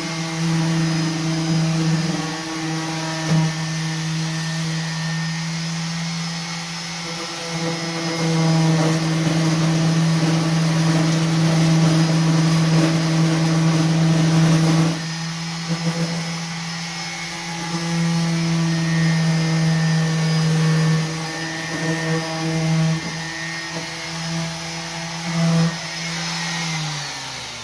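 Electric orbital sander running steadily as it sands, its loudness swelling and easing as it is worked. Near the end it is switched off and winds down, its pitch falling away.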